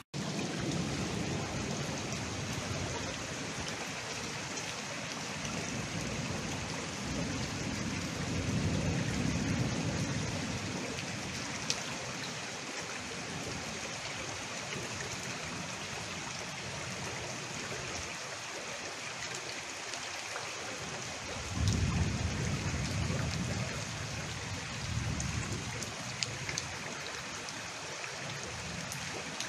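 Heavy rain and floodwater running through a street, a steady rushing hiss. A low rumble swells twice, about eight seconds in and again about twenty-two seconds in.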